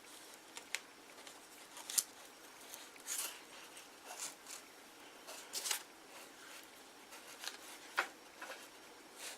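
Hands handling papier-mâché craft materials: irregular soft rustles and small sharp clicks, the sharpest about two seconds in and again near eight seconds.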